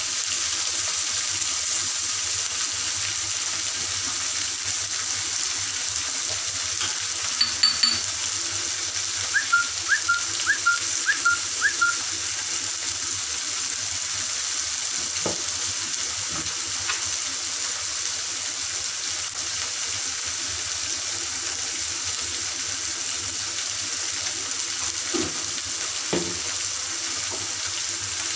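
Steady sizzling of food frying in oil in a pan, with occasional soft knocks. About ten seconds in, there is a quick run of six short, high chirps.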